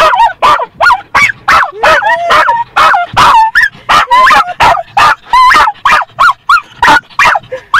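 A Scottish terrier barking frantically at moving windshield wipers: a fast, unbroken run of short, sharp, high-pitched barks and yips, about three a second.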